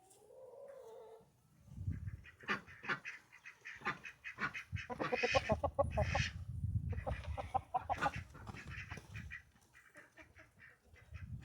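A flock of ducks quacking: many short calls overlapping, busiest in the middle and thinning out toward the end.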